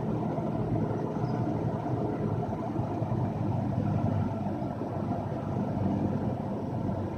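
Cessna 172's piston engine running steadily at low power, heard from inside the cockpit.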